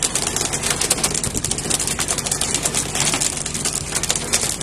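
Boat engine running steadily under a constant hiss of wind and water.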